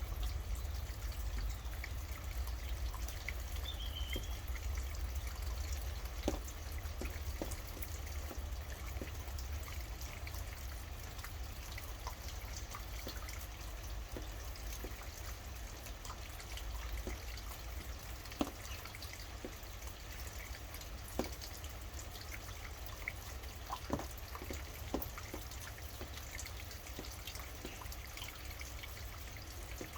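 Steady rain with scattered drops pattering, over a low rumble. A single short bird chirp comes about three seconds in.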